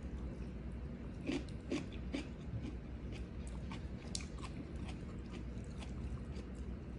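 A person chewing a mouthful of food with crisp, wet crunches of raw vegetable. The crunches are loudest in a quick cluster just over a second in, then come as softer, scattered clicks.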